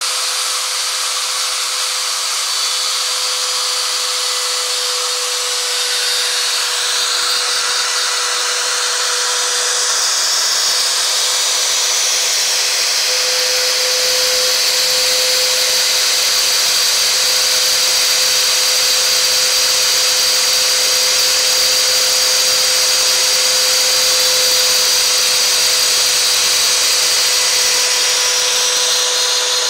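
Trim router serving as the spindle of a homemade CNC router, running at speed while its bit cuts through a plastic sheet: a steady motor whine with a cutting hiss, growing slightly louder after a few seconds.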